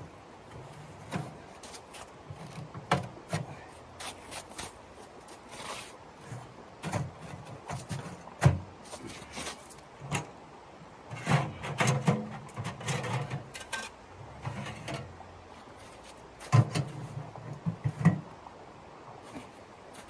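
Portable sheet-metal tent stove being assembled by hand: irregular metal knocks, clanks and rattles as its parts and chimney pipe are fitted, with boots shifting on snowy ground.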